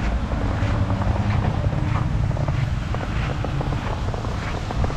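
Car traffic going by on a city street, a steady low rumble, with wind buffeting the microphone.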